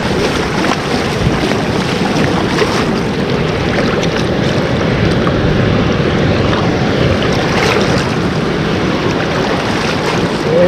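Waves washing through the shallows at the water's edge, a steady rush of water, with wind on the microphone.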